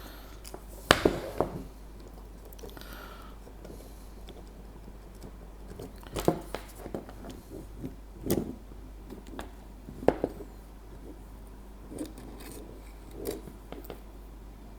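Scattered clicks, taps and light rubbing from a self-feeding soldering iron's plastic body and solder feed tube as they are handled and adjusted by hand; about half a dozen knocks, the loudest about a second in.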